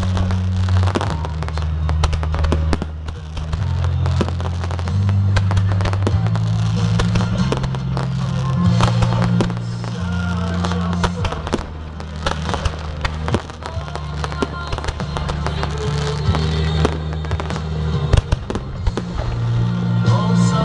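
A fireworks display: many shells bursting and crackling in quick succession, over music with a deep, sustained bass line.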